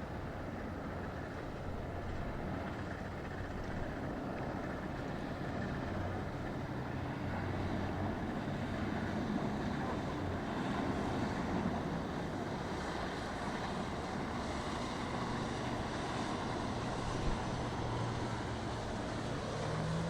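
Boat engines running steadily under a wash of wind and water noise, their low hum swelling about halfway through and again near the end.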